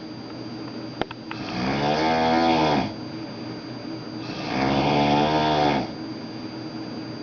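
A man snoring in his sleep: two long, pitched snores of about a second and a half each, roughly three seconds apart, with a short click about a second in.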